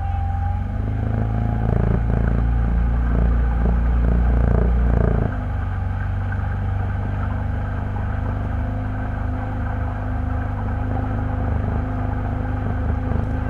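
A low, steady engine rumble, louder for the first five seconds and then dropping suddenly to a lower steady level.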